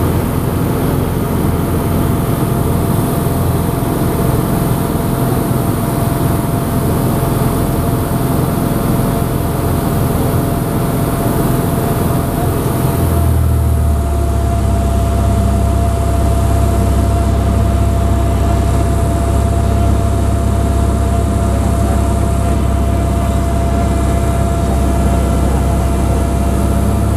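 Grob G115E Tutor's four-cylinder Lycoming piston engine and propeller droning steadily in the cockpit, with wind hiss and a thin steady whine over it. About halfway through the sound shifts: the hiss falls away and a deeper drone takes over.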